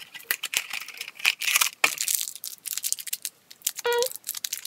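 Blind-box packaging torn open and crinkled by hand, a run of crackling rips and rustles. Near the end there is a brief hummed voice sound.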